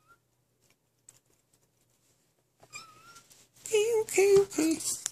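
Bengal kitten making a short high chirp about three seconds in, then three quick meows close together near the end, over scuffling noise.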